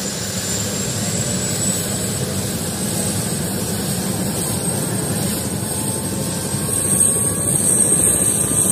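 Helicopter turbine engine and rotor running on the ground, a steady rushing noise with a high whine that creeps up in pitch and gets louder near the end.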